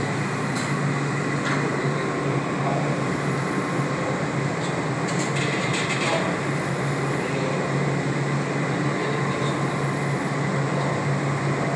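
Steady room noise with a low, constant hum, like a fan or air conditioner, and a few faint clicks.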